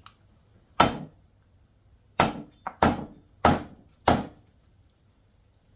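Five sharp knocks on wood: one about a second in, then four more in an even run about 0.6 s apart.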